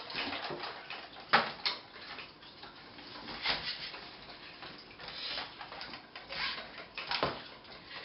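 Irregular handling noises from a plastic NAO humanoid robot: knocks and clicks as it is set down on a wooden table and its limbs and head are moved by hand. The sharpest knock comes a little over a second in, with a few more scattered through.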